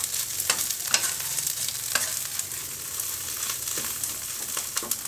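Pounded chilli paste of dried shrimp, chillies, garlic and shrimp paste sizzling in hot oil in a nonstick wok, stir-fried with a wooden spatula that scrapes and taps against the pan every half second or so.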